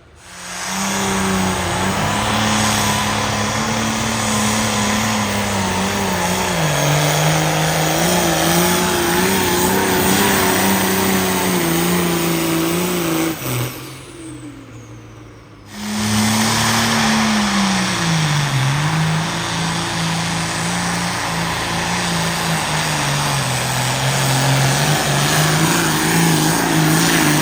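The engine of a competition pulling vehicle running hard at high revs under load, its pitch sagging and recovering as it drags the sled. The sound drops away for about two seconds a little past the middle, then a similar engine run starts again.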